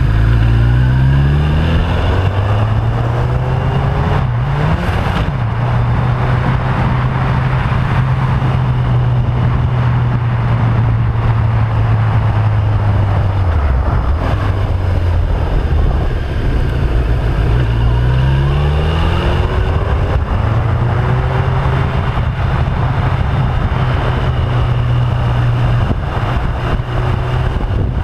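Motorcycle engine under way on a twisty road, with wind rush on the microphone. The engine pitch rises as it pulls out of bends in the first two seconds and again about two-thirds of the way through. It drops briefly near the middle as the throttle closes, and runs steadily in between.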